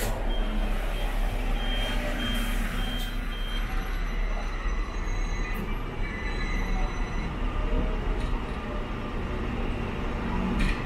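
Hong Kong double-decker tram running with a steady rumble. A run of short high beeps at one pitch, about two a second, sounds over the first few seconds.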